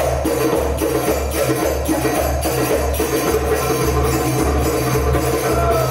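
Live percussion ensemble playing a steady drum rhythm, with a dense high layer ringing above the beat.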